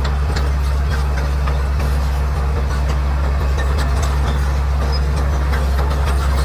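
Bulldozer's diesel engine running steadily with a deep, even hum, with scattered short clicks and cracks over it.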